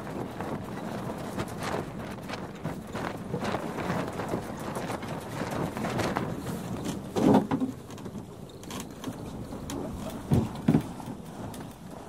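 Sailing dinghy activity: a steady wash of water and wind with many small knocks from the boat. Louder thumps come about seven seconds in and twice more near the end.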